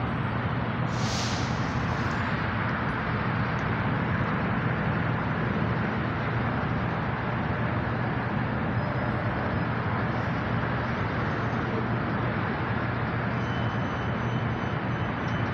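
Steady vehicle and traffic noise: a continuous even rush with a low hum underneath. A brief rustle about a second in, and a faint thin high whine comes in near the end.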